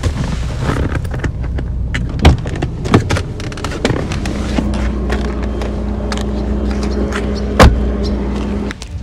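Car cabin with a low steady rumble underneath and a few sharp knocks and clicks of things being handled inside the car, the loudest near the end. From about four and a half seconds a steady electric motor hum runs, a power window moving, and cuts off suddenly just before the end.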